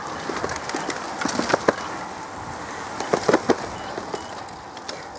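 A group of road cyclists riding past on a climb: a steady rush of outdoor noise, with a few sharp clicks about a second and a half in and a cluster of them around three seconds in.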